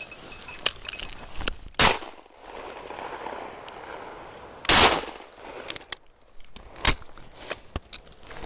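Two shotgun shots about three seconds apart, the second louder and longer, fired over a pointing dog while grouse hunting.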